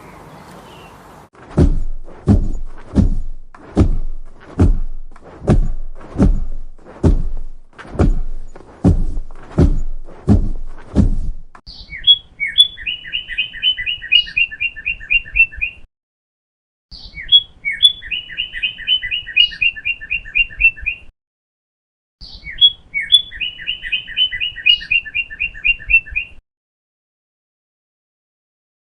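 About a dozen slow, evenly spaced knocks, a little over one a second. Then a songbird sings three songs, each a couple of high opening notes followed by a rapid trill of repeated notes, with short pauses between.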